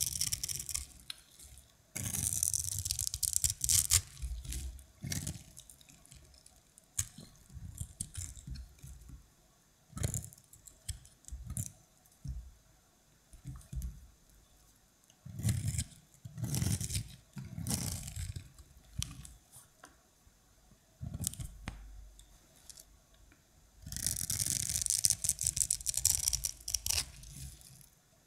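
Dry, starch-dusted soap crunching and crumbling as it is crushed and cut by hand: crisp crackling in bursts, loudest just after the start and again near the end, with scattered scrapes and soft knocks between.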